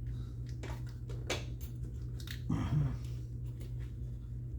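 Light clicks and taps from a nut being worked onto a bolt by hand, over a steady low hum. There is a short low grunt about two and a half seconds in.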